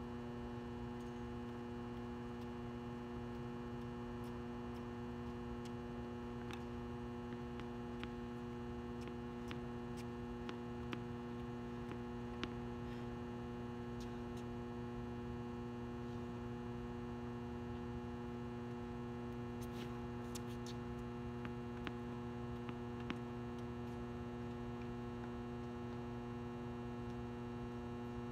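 Steady electrical mains hum with a low buzzing drone. A few faint tennis ball strikes come through now and then.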